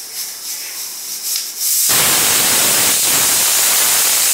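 Pressure cooker's weighted whistle venting steam: a pulsing, spluttering hiss that about two seconds in breaks into a loud, steady rush of steam. This is the cooker's first whistle, the sign that pressure inside has built up enough to lift the weight.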